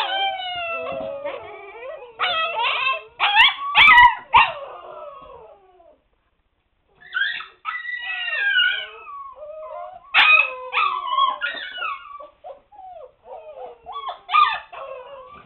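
A litter of seven-week-old husky puppies howling, whining and yipping together, several high wavering cries at once that rise and fall: a racket made in protest at being shut in their puppy pen. The cries break off for about a second near the middle.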